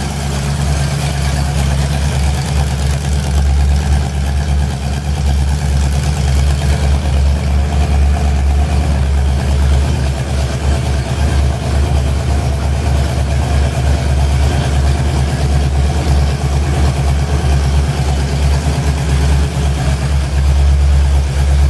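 Freshly rebuilt Ford Falcon engine idling steadily on an engine run-in stand as it warms up to temperature.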